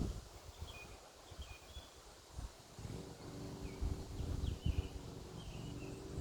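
Faint, short bird chirps scattered over a low outdoor rumble, with a steady low hum joining about three seconds in.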